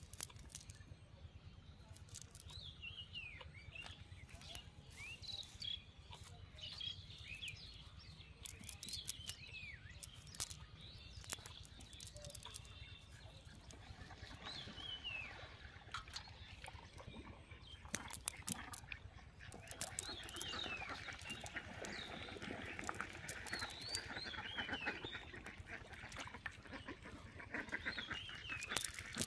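Birds calling in short falling chirps throughout, joined in the last third by ducks quacking in a rapid run. Occasional sharp clicks come from the cast net being handled.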